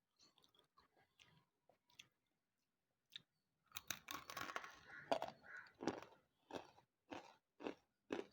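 A person biting and chewing wet slate chips: faint mouth clicks, then a burst of crunching about four seconds in, settling into steady chewing at about two chews a second.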